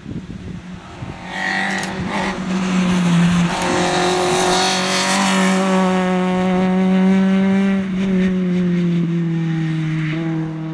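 Citroën C2 rally car engine running hard at high revs through a corner; the engine note steps up about a third of the way in and drops again later.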